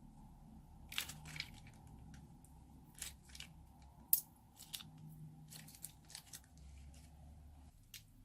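Slime being handled, giving irregular crisp crackles and pops, a dozen or so sharp clicks, with the loudest a little past the middle.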